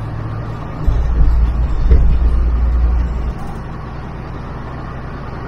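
Engine and running gear of a vintage double-decker bus heard from the upper deck as it drives along, a deep drone that grows louder for a couple of seconds and then drops back to a quieter steady run about three seconds in.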